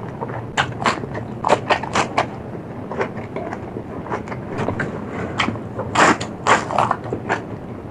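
Close-miked chewing of food, a string of irregular crisp crunches and wet mouth clicks, with the densest crunching about six seconds in.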